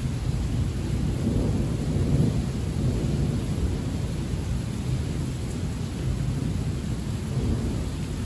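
Thunder rumbling low and long, swelling about two seconds in and again near the end, over the steady hiss of heavy rain.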